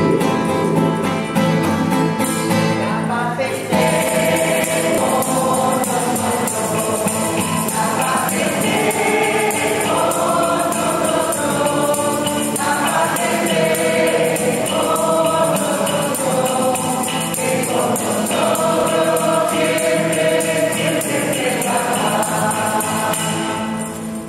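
Church choir singing a hymn with tambourine accompaniment, the voices held in long sung phrases.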